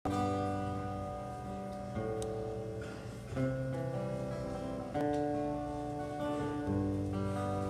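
Acoustic guitar playing slow, ringing chords, with a new chord about every second and a half.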